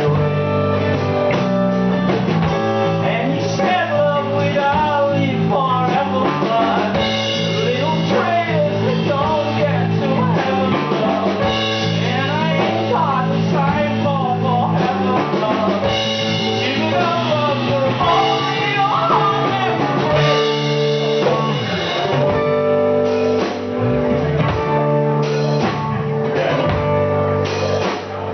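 Live rock band playing: guitars over a steady drum kit, with bending lead lines, at full volume throughout.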